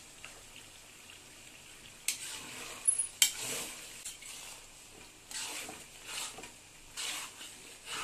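Spatula stirring onions, tomatoes and spices in hot oil in a kadhai, with scraping and sizzling. It starts about two seconds in with a couple of sharp clacks against the pan, then goes on in strokes roughly once a second.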